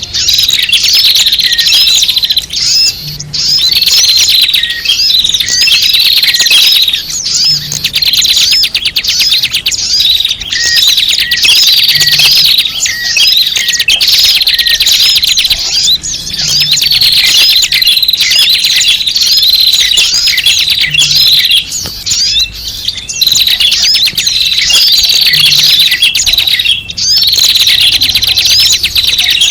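Dense chorus of small birds chirping and twittering without pause, from a bird-lure (pikat) recording made to draw small birds in. The pattern repeats in a loop about every four and a half seconds.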